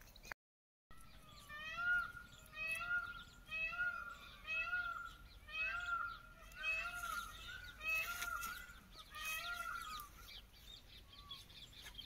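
Peacock (Indian peafowl) calling in a long run of short, rising-and-falling calls repeated evenly, a little more than one a second, starting after a brief dropout about half a second in and tailing off near the end.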